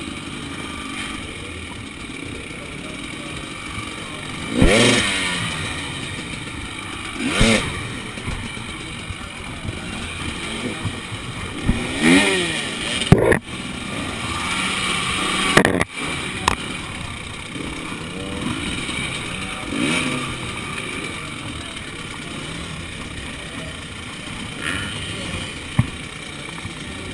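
Enduro dirt-bike engines idling, with about six short throttle revs that rise and fall in pitch as riders climb the rocks, and a couple of sharp knocks about halfway through and near the end.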